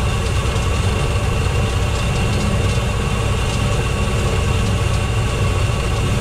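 Douglas DC-6's Pratt & Whitney R-2800 radial piston engine running steadily, heard from inside the cockpit as a constant low drone.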